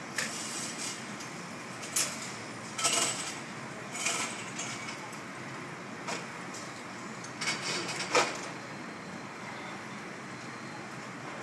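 Construction workers tearing material out of a building wall and clearing the debris: irregular clanks, scrapes and clatters, about half a dozen, the loudest near eight seconds in, over a steady background hum.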